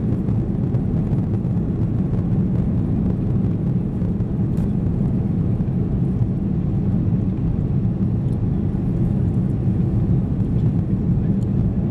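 Steady engine noise of an Airbus A330-300 heard inside the passenger cabin, with the engines under high thrust during takeoff and climb.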